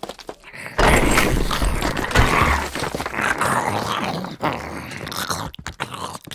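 Zombie growl and snarl sound effect, starting suddenly about a second in over a deep rumble, then rasping on and tailing off.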